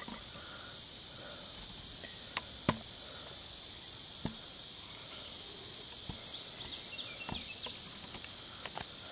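Steady high drone of insects, with a few light clicks of a metal spoon against a bowl, the sharpest about two and a half seconds in.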